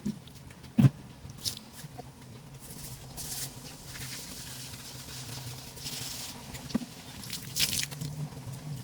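Scattered light knocks and clicks with short bursts of rustling, over a low steady hum; the sharpest knock comes a little under a second in.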